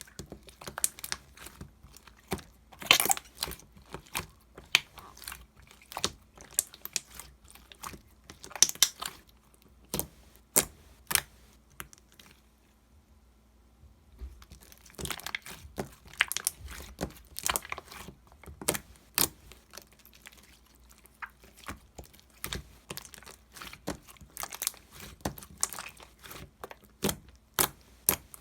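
Slime being worked by hand, making irregular sharp clicks and crackles, with a pause of about two seconds midway.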